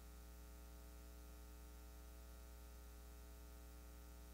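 Near silence with a steady low electrical hum.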